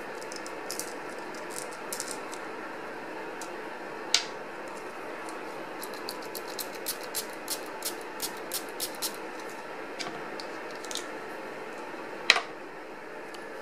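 Light plastic clicks from a plastic sprayer pen being handled: a quick, even run of about ten clicks, about four a second, in the middle, and two sharper snaps, one about four seconds in and one near the end, over a steady background hiss.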